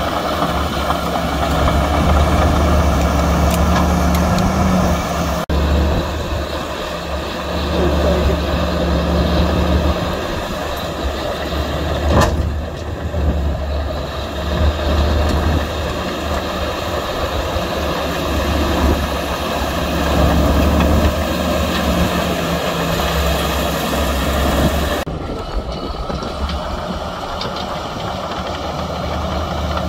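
Diesel engines of heavy earthmoving machinery running under load, a steady deep drone with a sharp clank about twelve seconds in. The sound changes abruptly twice, about five seconds in and near the end.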